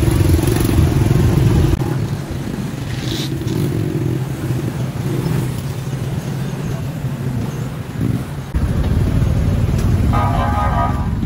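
Motorcycle engine running in slow street traffic, a steady low rumble that eases off about two seconds in and picks up again near the end. A short pitched tone sounds near the end.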